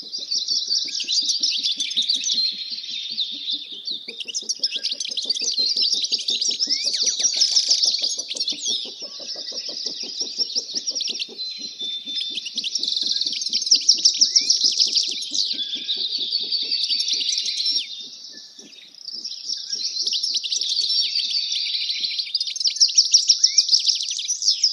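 Several small birds chirping and trilling in a dense, continuous chorus, with a brief lull about three-quarters of the way through.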